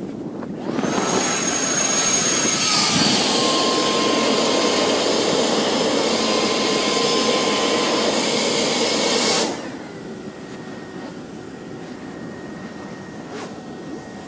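Electric-fan avalanche airbag (JetForce type) inflating: a sudden, loud, steady whirring rush with a whine over it, which changes pitch after a couple of seconds as the bag fills and cuts off suddenly after about nine seconds. It is deployed while the skier is caught in a slab avalanche.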